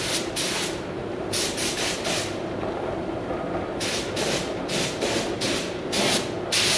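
Paint spraying onto the dozer blade in short hissing bursts, about six in a row with pauses between.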